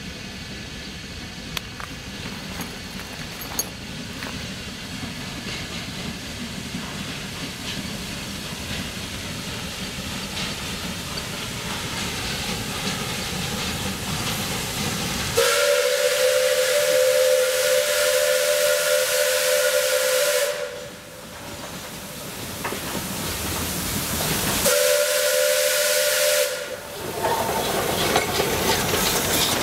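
C2-class narrow-gauge steam locomotive approaching, its running growing steadily louder, then sounding its steam whistle: a long blast of about five seconds about halfway through and a shorter blast about ten seconds later. Near the end the locomotive runs past close by.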